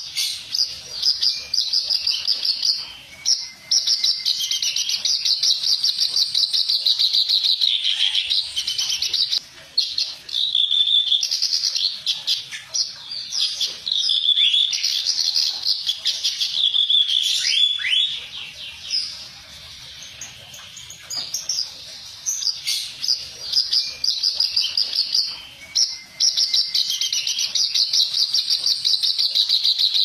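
Kerak basi (reed warbler) singing a long, harsh, chattering song of rapid notes, broken by a short pause about a third of the way in and a quieter stretch around two thirds of the way through.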